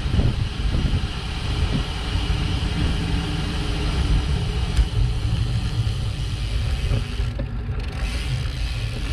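Wind buffeting the microphone of a camera on a bicycle coasting downhill at speed, a steady rumble with a hiss over it. The hiss thins for a moment near the end as the bike slows.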